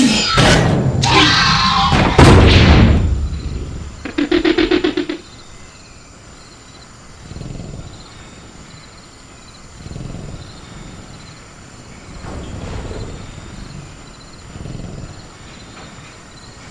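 Sound-designed velociraptor creature vocalizations: loud screeching, roaring calls and a heavy thud in the first three seconds, then a rapid rattling growl. After that come softer low swells every two to three seconds over a steady high drone of crickets.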